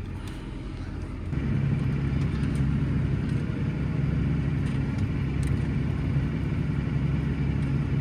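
New Holland tractor engine running under load while pulling a reversible plough through the ground, heard from inside the cab. Its note grows louder about a second in and then holds steady.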